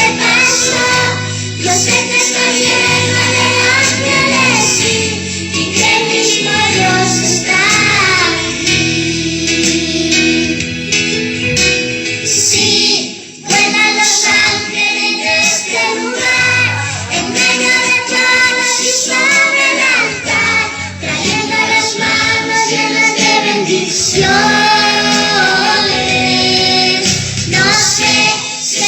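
A girl singing a Christian worship song over instrumental accompaniment, with a brief break about halfway through.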